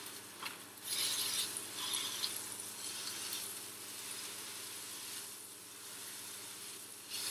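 Beef burger patty sizzling in a frying pan, a steady hiss that swells briefly around one and two seconds in, with a few light clinks.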